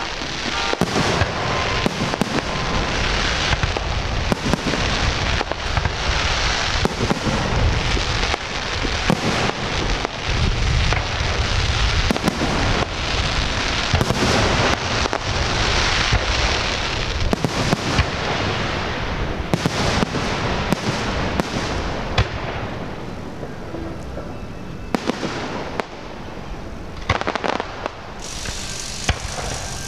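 Fireworks display going off in a dense barrage: many sharp bangs over continuous crackling, with deep booms. The barrage thins for a few seconds late on, then picks up again near the end.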